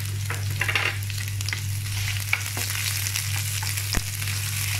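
Chopped shallots, curry leaves and chillies sizzling in hot coconut oil in a non-stick pan, stirred with a spatula that scrapes and taps against the pan. A steady low hum runs underneath.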